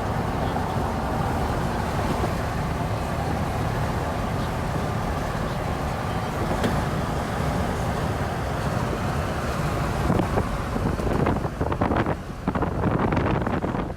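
Steady vehicle road noise: a rumble with hiss. From about ten seconds in, irregular gusts of wind buffet the microphone.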